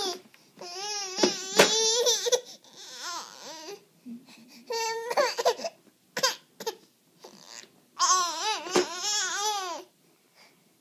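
Baby crying in wavering, sobbing wails, in several bursts with short gaps, with two sharp smacks, one about one and a half seconds in and one near nine seconds.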